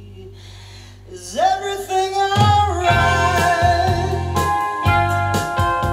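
Pop-rock music from a vinyl record played through a tube phono amplifier and hi-fi speakers, picked up in the room. After a brief lull a sung note swoops upward about a second and a half in, and the full band comes in with drums about a second later.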